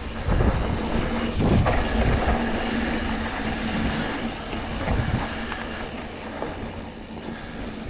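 Mountain bike ridden fast down a dry dirt trail: knobby tyres rolling over packed dirt and the bike rattling, with a few heavier thumps from bumps near the start and about five seconds in.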